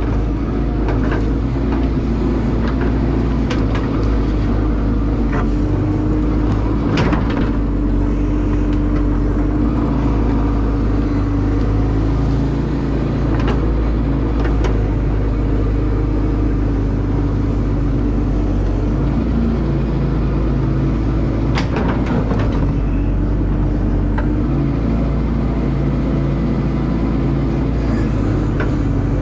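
Caterpillar excavator's diesel engine running steadily under work, with a few sharp knocks and scrapes of the machine at work, the loudest about a third of the way in and again about three-quarters through.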